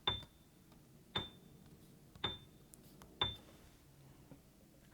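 Four short clinking ticks about a second apart, each with a brief high ring.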